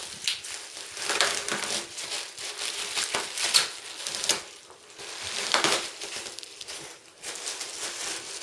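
Plastic packaging crinkling and rustling in irregular bursts as it is handled, with brief quieter gaps about five and seven seconds in.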